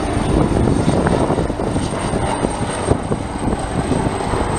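HM Coastguard AgustaWestland AW189 search-and-rescue helicopter, its rotor and twin turbine engines running loud and steady.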